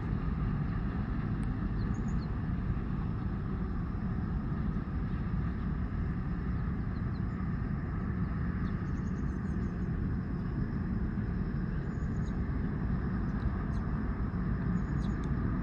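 Steady low engine rumble with no whistle sounding, and a few faint, short high chirps now and then.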